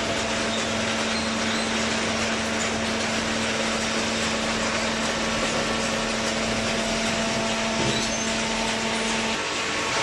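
Small hydraulic cardboard baler running: a steady machine noise with a steady hum that cuts off shortly before the end, and a single knock a little earlier.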